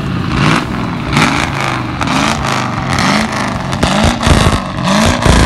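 1979 Dodge Dart's 318 V8 exhaust as the engine is blipped again and again, its pitch rising and falling about every two-thirds of a second.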